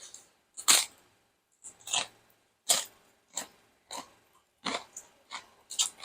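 A person chewing crunchy food close to the microphone, with irregular crisp crunches roughly two a second.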